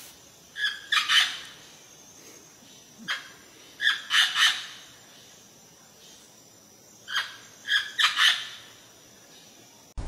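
Parrot squawking: loud, harsh calls in three bouts of three or four, a bout every three seconds or so.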